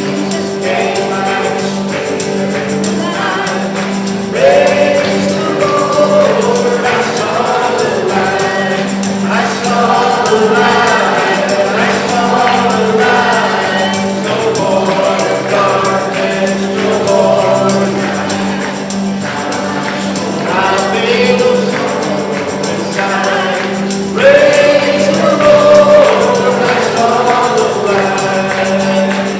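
Congregational worship music: a group of voices singing a gospel-style song over a band, with a tambourine. The singing grows louder about four seconds in and again near the end.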